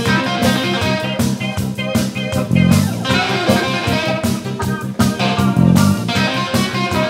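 Rock band playing live without vocals: electric guitar over bass guitar and a steady drum beat.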